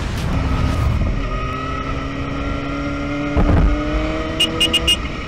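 A short explosion-like rumble at the start, then a motorcycle engine running steady and slowly rising in pitch. A brief loud thump comes about three and a half seconds in, and four quick high beeps near the end.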